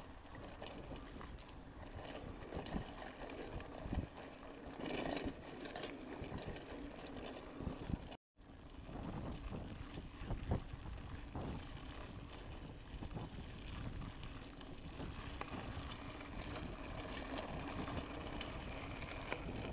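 Mountain bike riding on a dirt road: tyre noise on the sandy, stony surface with frequent knocks and rattles from the bike over bumps, and wind on the microphone. The sound cuts out for a moment about eight seconds in.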